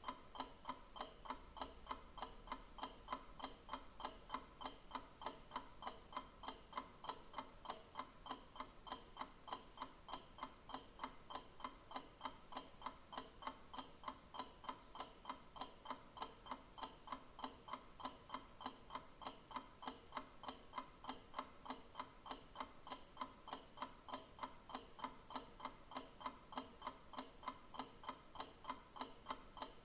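Clock ticking steadily and evenly, about two ticks a second.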